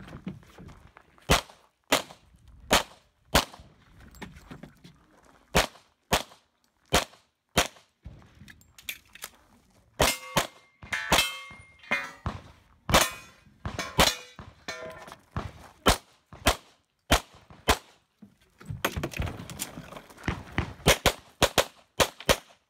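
Semi-automatic pistol firing a long string of shots, mostly in quick pairs, with short breaks while the shooter moves. Steel targets ring when hit, most clearly about halfway through.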